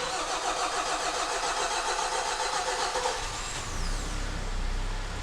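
Freshly rebuilt 2.0-litre G4KD four-cylinder petrol engine of a Hyundai ix35 on its first start: the starter cranks it for about three seconds, then it catches and runs at a steady idle.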